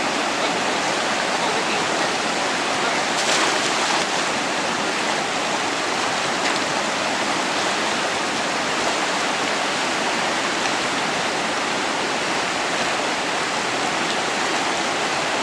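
Fast-flowing mountain river rushing over rocks, a steady, unbroken roar of water.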